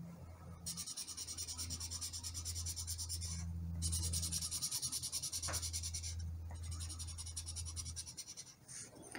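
Felt-tip marker scribbling on paper in rapid back-and-forth strokes, colouring in a shape. The scratching comes in three spells, with short pauses about three and a half and six seconds in.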